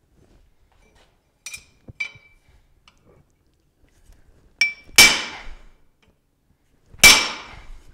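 Hammer striking a steel punch held on a thick steel strip that rests on a wooden stump, to put a bend in the strip. A couple of light taps come first, then two hard, ringing metallic blows about two seconds apart.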